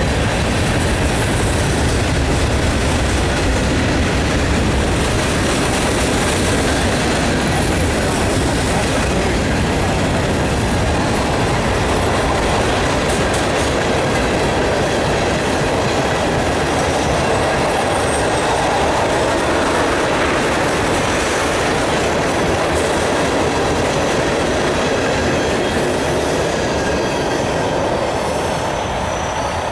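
Freight train's covered hoppers and tank cars rolling past, steel wheels rumbling and clacking over the rail joints. The sound drops off a little near the end as the last car goes by.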